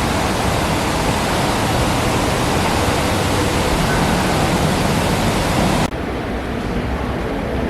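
Loud, steady rushing noise spread evenly from low to high pitch. About six seconds in it cuts off abruptly and is replaced by a quieter steady noise.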